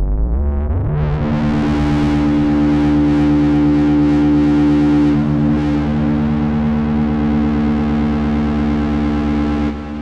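Novation Bass Station II analog monosynth playing a distorted held note through reverb. The pitch glides up over the first second, then the note holds steady while its bright top end wavers, and it drops back in level just before the end.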